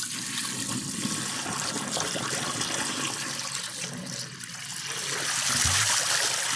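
Baking soda solution pouring in a steady stream from a 1-gallon water bottle into a sink, splashing onto the drain; it grows a little louder after the middle.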